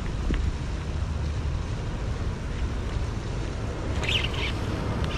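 Steady low wind rumble on the microphone over open water, with a brief crackling burst about four seconds in.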